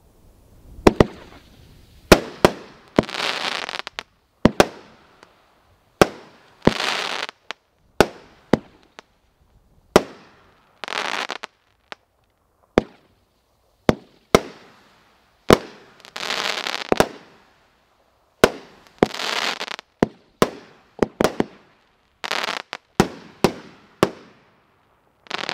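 Motor City Fireworks 'Panther Pride' firework cake firing shot after shot. Sharp bangs come roughly every one to two seconds, many followed by about a second of crackling fizz from the bursting stars.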